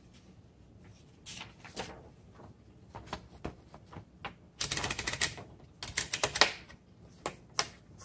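Paper being loaded into a 1949 Underwood Champion typewriter. A sheet rustles, then the platen is rolled in two quick runs of rapid ratchet clicks, followed by a few single clicks as the paper bail is set.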